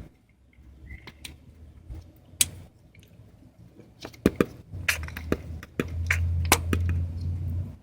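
Scattered small clicks and knocks of a plastic wiring-harness connector being worked loose from a transmission speed sensor. A low steady rumble comes in about five seconds in.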